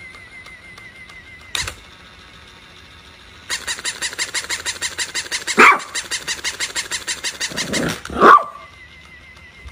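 Battery-powered toy puppy's mechanism running with rapid, even clicking, about five clicks a second, as it moves, while a small dog barks twice at it, loud and sharp.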